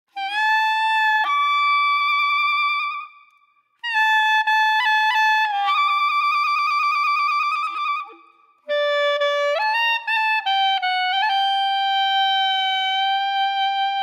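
Background music: a solo wind instrument plays a melody in three phrases separated by short breaks. Some held notes waver, and the last phrase ends on a long held note.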